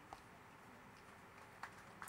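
Near silence: faint room tone of an outdoor gathering, with a single sharp hand clap near the end as applause starts.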